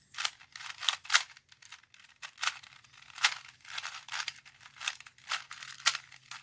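Plastic 2x2 Rubik's cube being turned by hand: a string of short clicking, rasping twists of its layers at an uneven pace.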